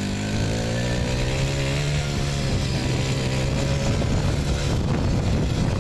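Motorbike engine running as it is ridden along, its pitch rising a little over the first couple of seconds and then holding steady, with road and wind noise.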